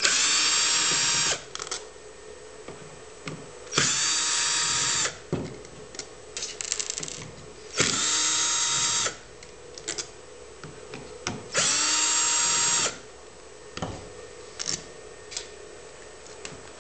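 Ryobi cordless drill with a screwdriver bit backing out the battery-plate screws of a camcorder: four short runs of about a second and a half each, the motor whine rising as it spins up and dropping as it stops. Small handling clicks come between the runs.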